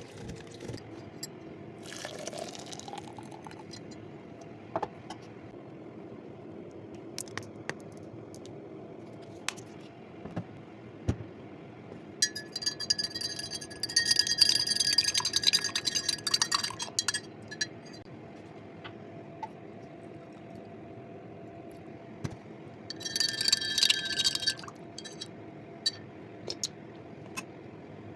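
Kitchen glassware being used to mix a drink: a short pour of liquid about two seconds in, then a spoon stirring and clinking against a glass, ringing, in two bouts, a longer one near the middle and a shorter one near the end, with small knocks of utensils in between.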